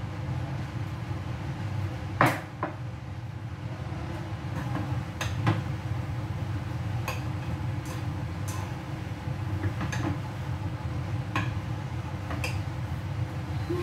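Kitchen clatter: about ten separate knocks and clinks of dishes and cupboard doors, the loudest about two seconds in, over a steady low hum.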